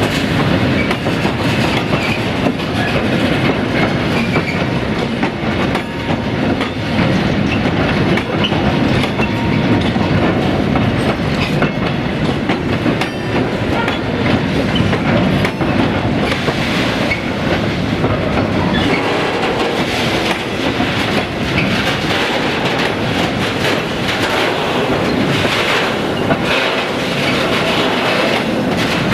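Freight train wagons rolling past, their wheels clattering steadily over rail joints.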